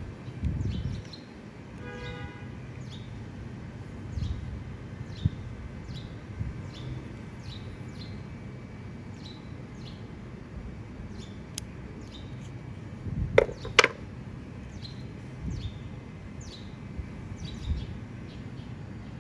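A small bird chirping over and over, short falling chirps about one and a half a second, over a low background rumble. About thirteen seconds in come two sharp snips of steel scissors cutting a rolled paper cone.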